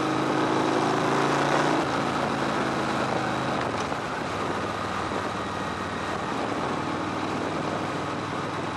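Victory Hammer V-twin motorcycle engine running with a steady note, heard from the tank. After about two seconds the engine note eases off and an even rushing noise remains.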